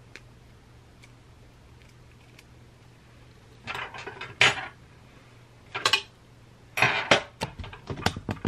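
Metal rotisserie spit and forks clinking and clattering as they are picked up and handled on a countertop, in several short bouts beginning a few seconds in.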